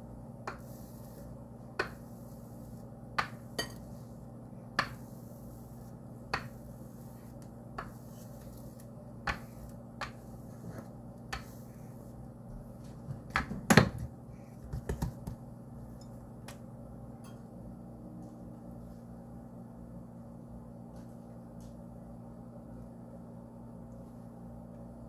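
Stainless steel rolling pin knocking and clacking against a wooden cutting board as dough is rolled out: sharp single knocks every second or two, then a louder cluster of knocks about halfway through, over a steady low hum.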